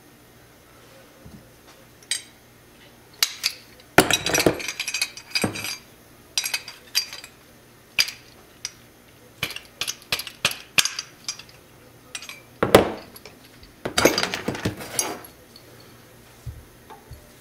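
Small metal parts and hand tools handled at a workbench: irregular clinks, clicks and knocks, busiest about four seconds in and again near the end, with one sharp knock shortly before.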